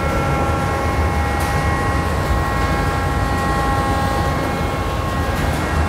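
Ship's engine-room machinery running: a loud, steady low rumble with several steady whining tones above it.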